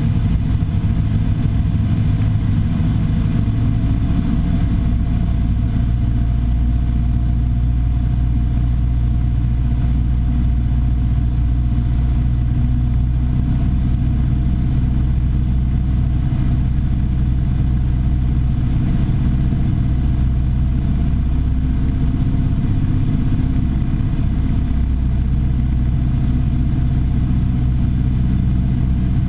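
Piper Warrior III's four-cylinder Lycoming engine and propeller running with a steady drone.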